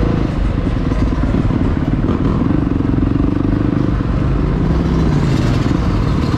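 Motorcycle engines running, their pitch rising and falling now and then.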